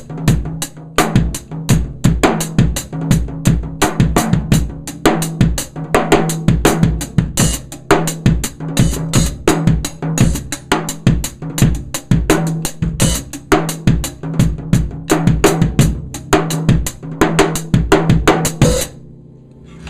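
Drum kit played in a steady groove around a ddrum Journeyman 13x7 snare drum, with bass drum, hi-hat and cymbals, and a low drum ring sustaining under the hits. The playing stops about a second before the end.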